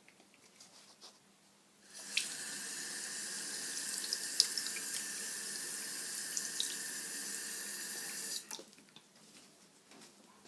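Water running steadily from a tap into a sink. It turns on about two seconds in and stops abruptly about six seconds later, with a few small ticks and splashes in the flow.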